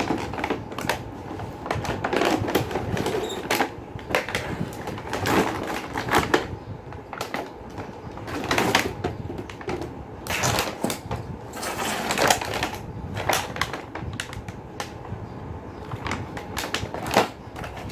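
Cardboard box and plastic packaging being handled and opened: irregular clatter, clicks and rustling throughout.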